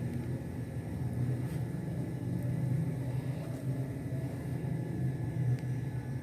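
A steady low background hum, with a few faint ticks.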